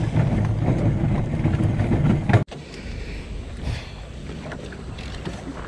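Small plastic boat being launched: a loud rough scraping of the hull over the slipway for about two and a half seconds, then, after a cut, the boat afloat with quieter water and wind noise and a few light knocks inside the hull.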